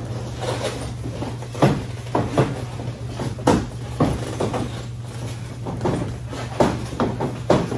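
Boxing gloves landing during sparring: irregular sharp thuds of punches striking gloves and bodies, some in quick pairs, over a steady low hum.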